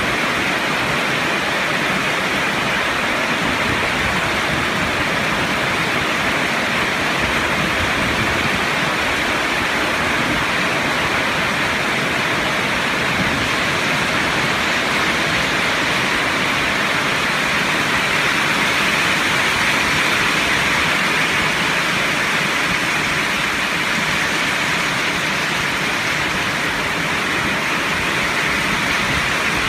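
Heavy rain pouring steadily onto wet paving and trees: an even, unbroken rush of downpour that keeps the same strength throughout.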